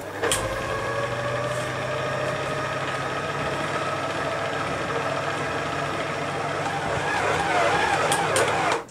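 Electric stand mixer motor running steadily while kneading bread dough, with a whine that climbs slightly in pitch over the first few seconds. It grows a little louder as the dough gathers into a ball near the end, then cuts off suddenly when switched off.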